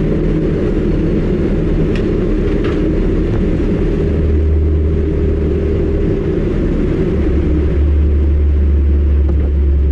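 A car driving at speed: a steady, loud low rumble of engine and road noise. The deepest part of the rumble grows heavier about four seconds in and again about seven seconds in.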